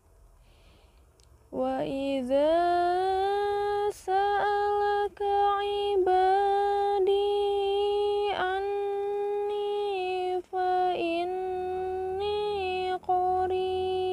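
A woman's solo Quran recitation in melodic tilawah style: long held notes with ornamented pitch turns and a few brief breaks for breath, starting about a second and a half in after a short quiet pause.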